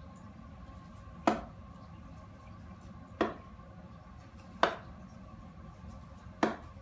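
Four darts striking the dartboard one after another, each a short sharp thud, about a second and a half to two seconds apart.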